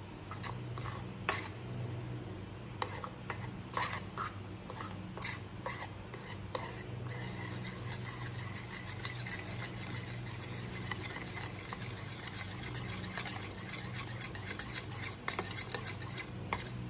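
Metal spoon stirring clams in a stainless steel bowl of milky chili sauce: sharp clicks of spoon and shells against the bowl for the first several seconds, then steady scraping and swishing. A low steady hum runs underneath.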